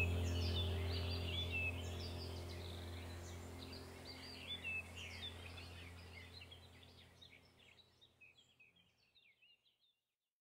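Many small birds chirping over a low steady hum, the whole sound fading out gradually until it is gone about ten seconds in.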